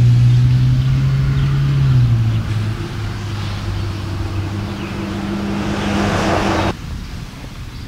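A motor vehicle's engine running with a steady low hum that drops in pitch about two seconds in; a rushing hiss builds toward the end and then cuts off suddenly.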